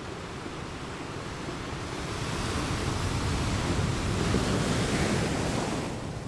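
Sea surf washing onto the shore, a rushing noise that swells to a peak past the middle and eases off near the end, with wind rumbling on the microphone.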